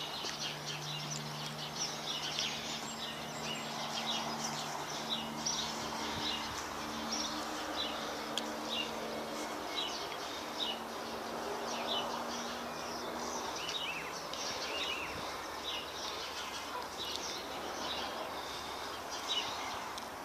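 Small birds chirping over quiet outdoor background noise, with a faint low steady hum that fades out about two-thirds of the way through.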